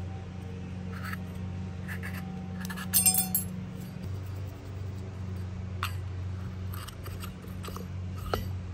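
Small metal tools and hardware clinking as they are handled and set down: a few light clicks, with a short burst of metal rattling and clinking about three seconds in, over a steady low hum.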